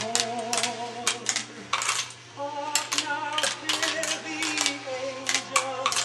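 Glass marbles clicking and clattering through a plastic marble run, a series of sharp, irregular clicks several times a second.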